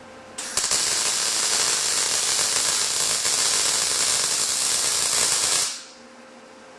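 Arc welder running a short fillet weld on steel square tube: a steady, loud hiss of the arc that starts abruptly about half a second in and stops about five seconds later.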